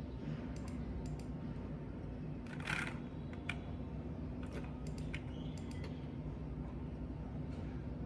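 A few scattered computer keyboard keystrokes and clicks over a steady low room hum. About two and a half seconds in comes one louder, brief scuffing noise.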